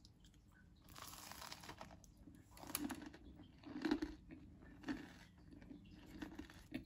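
Flaky baked buttermilk biscuit being broken apart by hand, its crisp layers crackling and crunching in about six short bursts, the loudest about four seconds in.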